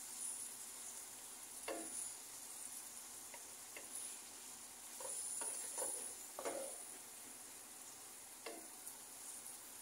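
Raw ground pork with chopped onion and garlic frying in a nonstick pan with a faint, steady sizzle, while a wooden spatula stirs and scrapes it in separate strokes every second or so.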